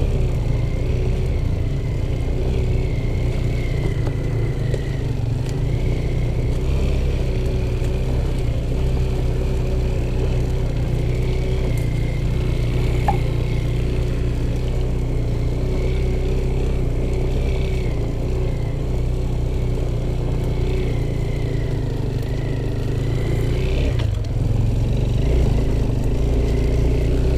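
Off-road motorcycle engine running at fairly steady revs with small rises and falls, plus rattling and clatter from the bike.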